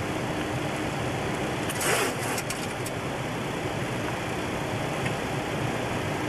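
Steady rushing noise of a Boeing 727 flight deck with a faint constant hum, and a short crackle about two seconds in.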